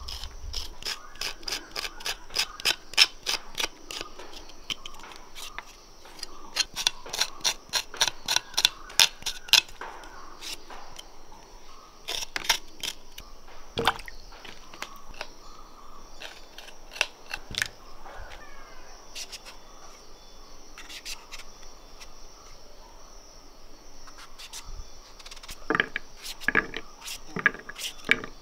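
Small knife cutting and scraping a raw green papaya, in runs of quick clicking strokes about three or four a second, then scattered cuts, with a cluster of cuts near the end as it is diced into cubes. A steady high insect drone runs underneath.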